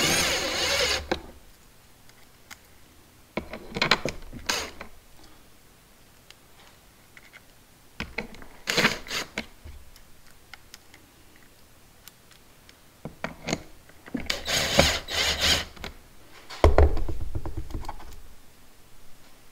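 Cordless impact driver running in short bursts as it drives T25 Torx screws into a plastic mounting plate. There are about five bursts a few seconds apart, and the later ones last longer.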